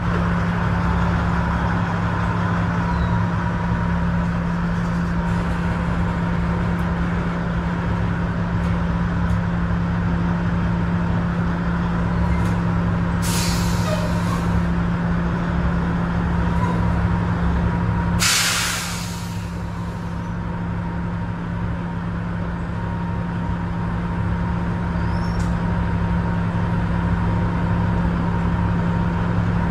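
Steady machinery drone while a hopper bottom trailer empties through its open gate into a grain unloading pit. Two short bursts of air hiss come about 13 and 18 seconds in, the second one louder.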